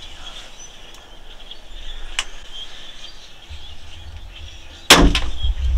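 Faint bird chirps over a quiet background, then about five seconds in a crossbow fires with a single sharp, very loud crack, followed by a loud low rumble.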